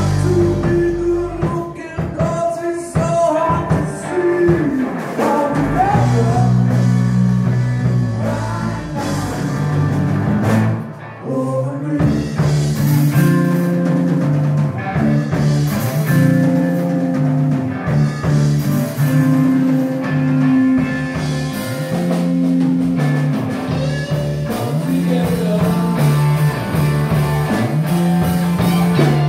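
Live rock band playing: bass guitar, electric guitar, drum kit and a lead singer, loud through the PA, with a brief drop in the music about eleven seconds in.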